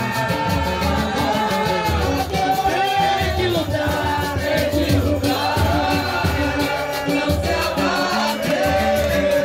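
Live band music: a singer over a steady rhythm of drums and percussion.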